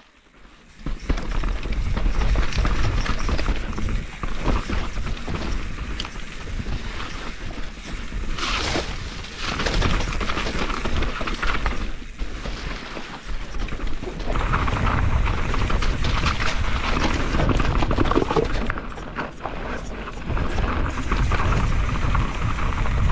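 Mountain bike riding down a wet, slippery dirt trail, heard from a GoPro: tyres on mud and roots, chain and frame rattling, and wind buffeting the microphone. It gets louder about two thirds of the way through.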